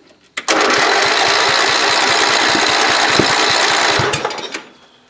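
John Deere 68 lawn tractor's starter motor cranking the engine for about four seconds with a rapid pulsing, without it catching, then stopping. The battery is too weak to start it.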